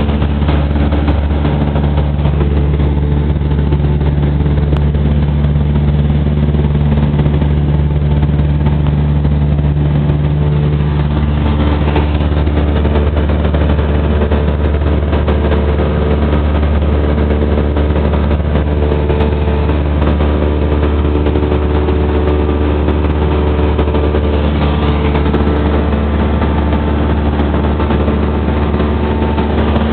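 Light aircraft's engine and propeller droning steadily in flight, heard inside the cabin: a loud, even drone of several held tones, one of the lower tones fading away about eleven seconds in.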